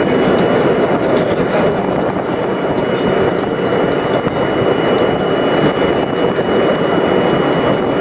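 New York City subway train running steadily through a tunnel, heard from inside the car: a loud, even rumble and rush of wheels on rail, with a few scattered sharp clicks and a thin steady high whine.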